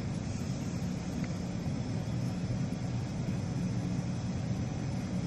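Steady low hum and rumble of background noise, with no distinct clicks or handling sounds.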